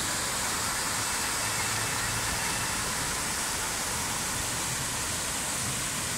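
Fountain splashing steadily: water pouring over the rim of a sculpted basin in a sheet, and spray jets falling into the pool around it, an even rushing hiss.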